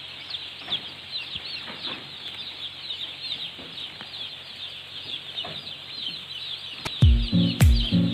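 A shed full of young chicks peeping, a dense, continuous chorus of high chirps. About seven seconds in, background music with a heavy beat comes in over it.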